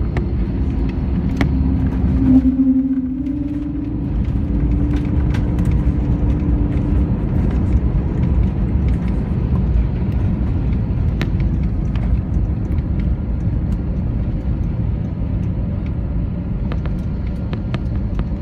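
Steady low rumble in an airliner's cabin as it rolls along the runway after touchdown, with a hum that rises slightly about two seconds in and dies away around seven seconds, and light rattles here and there.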